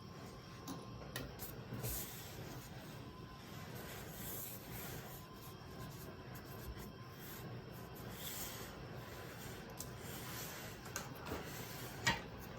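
Typing on an IDOBAO ID80 mechanical keyboard with Kiwi tactile switches and PBT keycaps: a run of soft keystrokes with a few sharper clacks, the loudest near the end.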